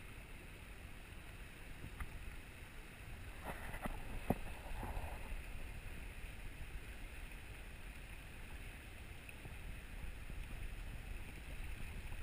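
River current rushing and lapping, with a low rumble of wind on the microphone. One sharp knock about four seconds in.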